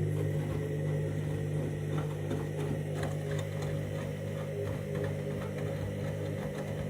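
Candy washing machine running its main wash: the drum motor hums steadily as the drum turns, with faint light ticks and swishes over it.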